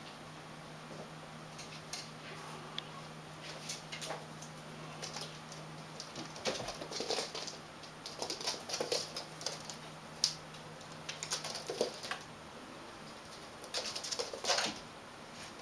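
Persian kitten's paws scrabbling on a cork floor as it bats and chases a small ball: scattered light clicks and patter, busier in the second half with a sharp click about ten seconds in and a flurry near the end.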